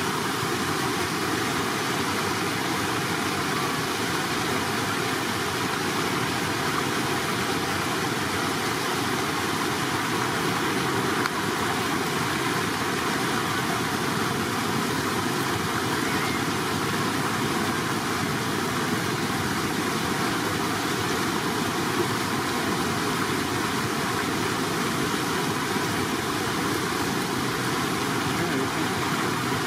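Steady rush of shallow flowing water, an even noise that doesn't change.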